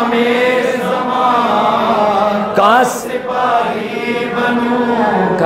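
A man's voice chanting an Urdu devotional poem into a microphone, in long held notes with a quick upward slide about halfway through.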